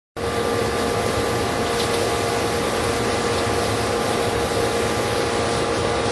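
A machine running steadily: an even rushing noise with a steady hum in it, starting abruptly just after the beginning.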